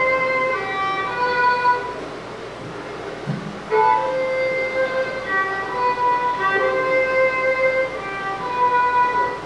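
Violin playing a slow melody of long held notes, softer for a stretch in the middle before a strong note comes in about four seconds in.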